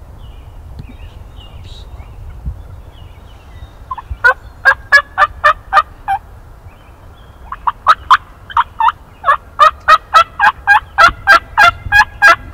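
Turkey yelping, loud and close: two runs of sharp notes at about four a second, a short run starting about four seconds in and a longer one from about seven and a half seconds.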